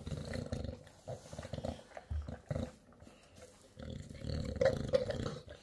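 English bulldog eating steak and kibble from a plastic bowl: chewing and heavy breathing through its nose in irregular bursts, loudest a little after four seconds in.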